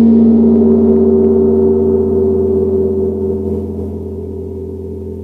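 A two-and-a-half-foot Sabian Chinese gong, just struck with a felt mallet, ringing out in a deep, dark tone with long overtones, one overtone swelling about a second in, the whole slowly fading.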